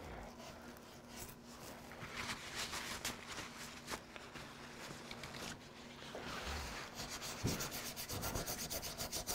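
Toothbrush dipped in water scrubbing wet glue squeeze-out off a glued wooden joint: a soft bristle rubbing on wood, turning into quick back-and-forth strokes from about seven seconds in.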